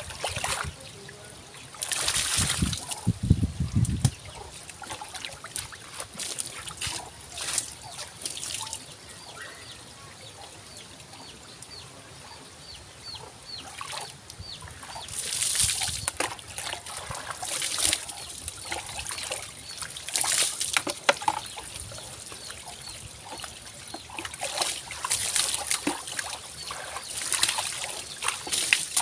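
Bath water poured from a plastic dipper, splashing over a person and onto the ground in repeated irregular bursts, with trickling and dripping between pours.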